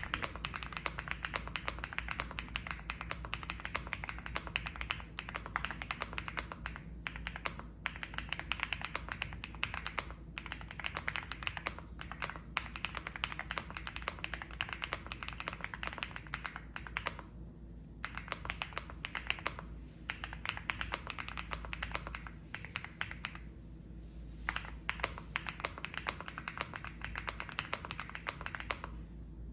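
Epomaker Galaxy80 mechanical keyboard with stock, factory-lubed White Marble linear switches being typed on continuously: fast, dense keystroke clicks broken by a few short pauses.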